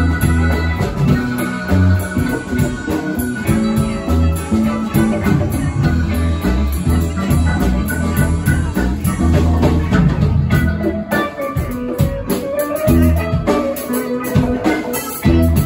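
Live band playing amplified through a PA: mandolin and electric guitar over electric bass and a drum kit.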